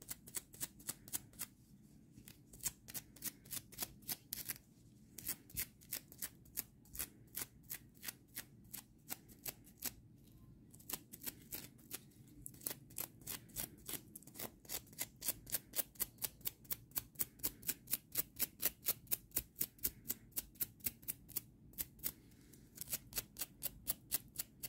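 A brush dragged in quick repeated strokes over a crocheted acrylic-yarn toy, a scratchy rasp about three times a second with a few short pauses. The yarn is being brushed out to make it fluffy.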